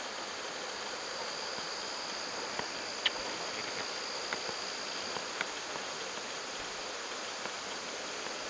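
Steady insect chorus: an even high drone over a soft hiss, with a few short faint clicks in the middle, the sharpest about three seconds in.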